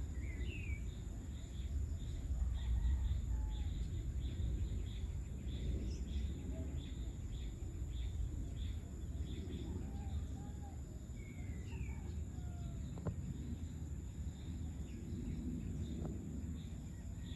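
Open-air countryside ambience: a steady low rumble under insects chirping in a quick, even pulse. Brief bird calls come near the start and again about eleven seconds in.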